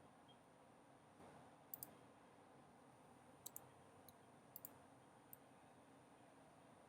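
Faint computer mouse clicks, about eight, several coming in quick pairs like double-clicks, over a quiet background hiss.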